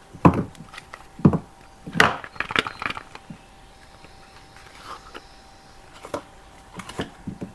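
Soap packaging handled and opened by hand: knocks and crinkles of wrapper and box, with two firm knocks in the first second and a half, a cluster of crackles between two and three seconds in, and a few lighter clicks near the end.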